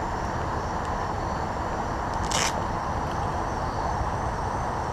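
Steady rush of water running through a drainage grate underfoot, with one short scrape about two seconds in.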